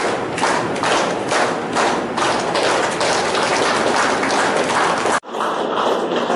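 Audience clapping together in a steady rhythm, about three claps a second, stopping abruptly a little over five seconds in.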